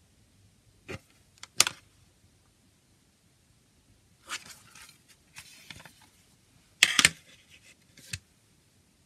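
Plastic CD jewel case being handled: a few sharp clicks and taps, soft rustling as it is turned over, then the loudest clacks about seven seconds in as the case is snapped open, with one more click shortly after.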